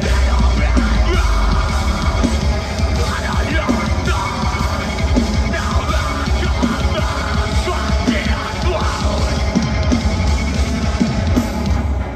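Metalcore band playing live at full volume: heavy drums and bass, distorted guitars and screamed vocals, heard from within the crowd.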